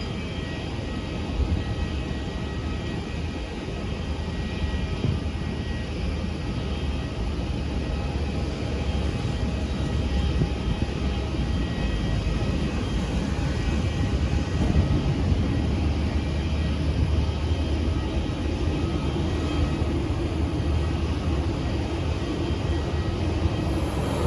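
Jet airliner engines heard across an airport apron: a steady rumble with a faint high whine over it, growing slowly louder.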